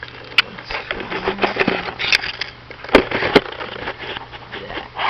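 Camera handling noise as the camera is set down on a white oak log: rustling and scraping, with a sharp knock about half a second in and two more close together about three seconds in.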